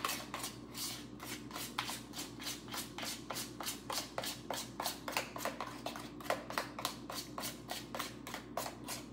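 A hand utensil beating egg and milk into cornbread mix in a bowl, in quick strokes of about five a second that tap against the bowl in a steady rhythm.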